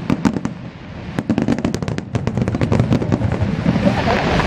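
Fireworks bursting in quick succession: a dense string of sharp cracks and pops over low booms, thickening into a continuous crackling din near the end.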